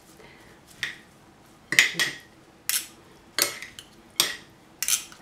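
Metal spoon and fork tossing a salad in a ceramic bowl, clinking against the bowl about seven times, each clink short and separate, under a second apart.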